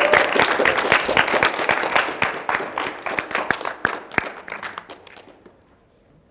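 Audience applauding: dense clapping that thins to scattered claps and dies away about five seconds in.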